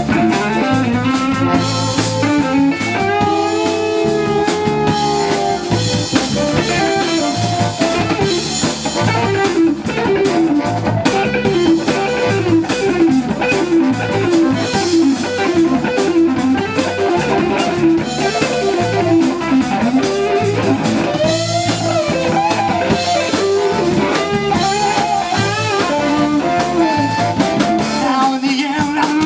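Live blues band playing an instrumental passage: electric guitar and harmonica over electric bass and drum kit.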